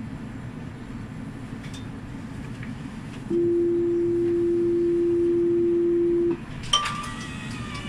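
A single steady warning tone, held for about three seconds over the low rumble of a GEC-Alsthom TFS tram, then cut off. Near the end come a few sharp clicks and a brief higher ringing tone.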